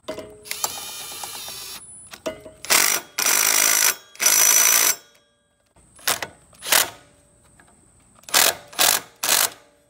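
Metal tool and parts noises as the torque converter's driven pulley goes back on: a ringing metallic clatter, two loud scraping bursts, then several short sharp clacks.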